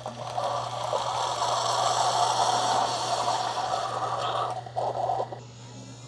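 Keurig K155 coffee maker's end-of-brew air purge: a rush of air blown through the K-cup for about four seconds, then a brief second puff, pushing the last coffee out of the pod.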